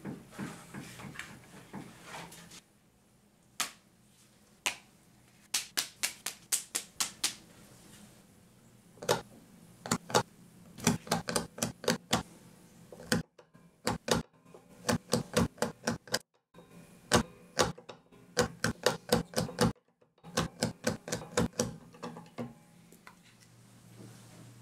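Runs of sharp clicks, several a second with short pauses between runs, as a narrow flat blade is pushed through veg-tanned leather into a cutting board, cutting weaving slits. Soft rustling of leather being handled comes first.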